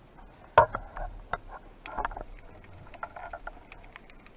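Underwater handling noises from a speargun and fish stringer while a speared fish is threaded on: irregular clicks and knocks, the sharpest about half a second in, with short scraping noises between them.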